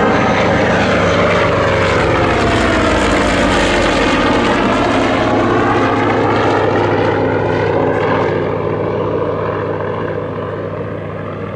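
Goodyear FG-1D Corsair's 18-cylinder Pratt & Whitney R-2800 radial engine and propeller passing by in flight, the engine pitch falling as it goes past. The sound fades somewhat near the end.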